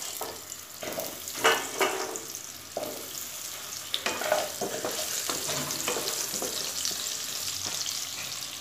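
Potato chunks dropped a few at a time into hot oil in a kadai, frying with a steady sizzle and spitting, with short knocks as pieces land in the pan.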